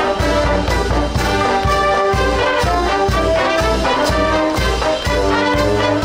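High school marching band playing: saxophones, trumpets and trombones holding and moving between melody notes over a strong bass line and a steady beat of about two strokes a second.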